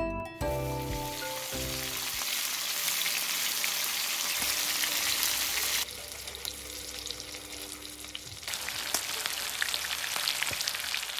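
Food sizzling and crackling in hot oil on a pan or grill, with abrupt changes in the sound about six seconds in and again two and a half seconds later.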